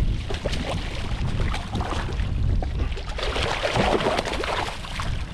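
Wind buffeting the microphone and water washing around a boat at sea, with scattered knocks and splashes that swell for a moment about three seconds in.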